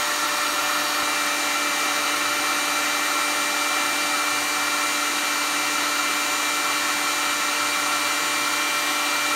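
Steady whir of fans with a few steady hum tones: a heat gun running at full power and the Pecron E600LFP power station's cooling fans, the station overloaded at about 1380 watts against its 1200-watt rating.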